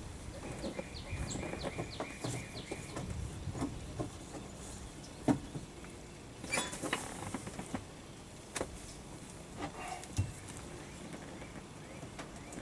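Scattered light clicks and knocks of hand work on plastic parts, fitting rocker switch panels into a boat console, with a quick run of small ticks about half a second in and one sharper knock about five seconds in.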